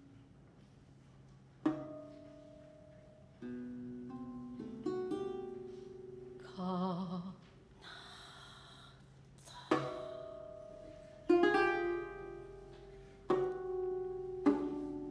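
Lute plucked in sparse single notes and chords, each ringing out and fading, spaced a second or two apart with a few quick runs. About halfway through, a Noh voice gives a short wavering tone, followed by a breathy hiss.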